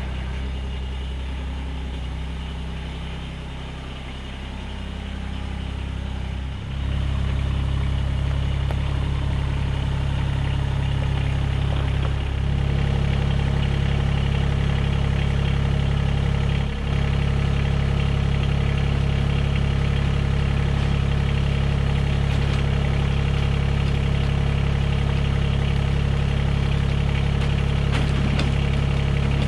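Mahindra eMax 20S HST compact tractor's three-cylinder diesel engine running steadily, stepping up louder about six seconds in and again around twelve seconds.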